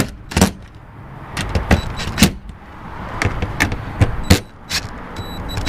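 Cordless impact driver (DeWalt 20V) driving screws into a plastic roof cable-entry housing, in a string of short, sharp bursts with brief pauses between them.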